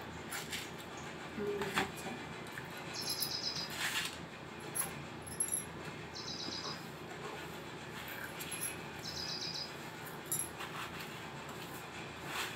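A bird repeating a short, high, rapid trilled call about every three seconds, with a few scattered sharp clicks.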